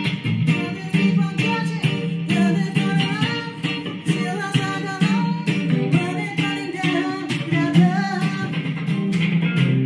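Electric guitar playing a rhythmic strummed chord riff, with a woman singing along over it.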